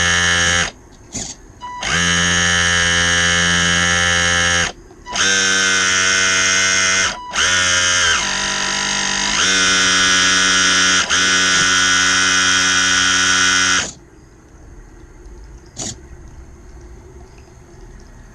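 Electric drive motor of an RC model Ford GPA giving a loud electric buzz under throttle. It starts and stops several times, drops and rises in pitch once, and cuts out well before the end.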